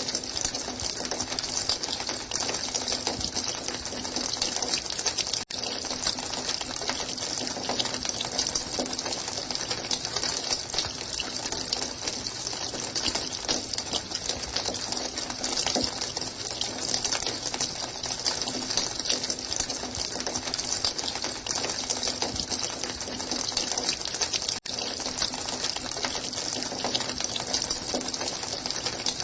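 Running water, a steady gushing rush with a faint low hum under it. It cuts out for an instant twice, about five seconds in and near the end.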